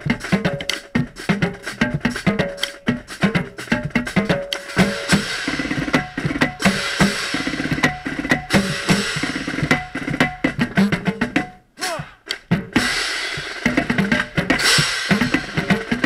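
Marching drumline playing a cadence, the tenor drums (quints) up close over snares and bass drums, in fast dense strokes. The rain-wet heads are not resonating as they usually do. The playing breaks off briefly about three-quarters of the way through, then the full line comes back in.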